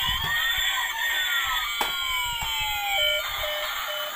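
Electronic siren sound from a battery-operated toy police truck, with overlapping rising and falling wails. About three seconds in it changes to a repeating pattern of short beeps, and there is a sharp click just before the two-second mark.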